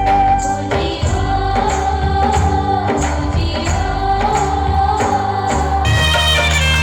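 Indian folk-style song with a held, wavering sung line over a steady drum beat; the arrangement changes near the end.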